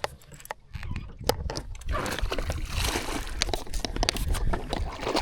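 Water splashing and sloshing from about two seconds in, with sharp clicks, as a hooked bass is fought and landed beside a small boat. A low rumble runs underneath.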